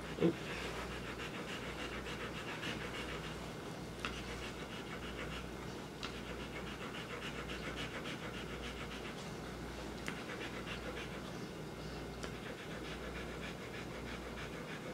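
A Rottweiler panting rapidly and steadily while her infected, mastitis-swollen teat is squeezed. There is one short vocal sound with a falling pitch just after the start.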